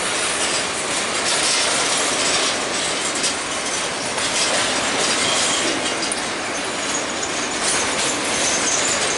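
Empty covered hopper cars of a freight train rolling past, the steel wheels clattering steadily over the rail joints. In the second half a thin, high wheel squeal rises over the clatter, as the wheels grind through the curve.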